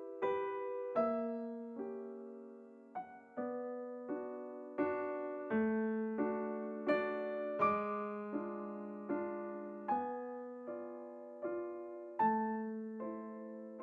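Solo piano background music: an unhurried melody over chords, each note struck and left to ring away.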